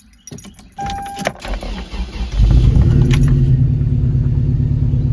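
Keys jingle and a short beep sounds, then the 1997 Toyota Tacoma's 2.7-litre 3RZ four-cylinder engine cranks and catches about two and a half seconds in, settling into a steady idle. It runs smoothly now, on all four cylinders with the number 1 injector plugged back in.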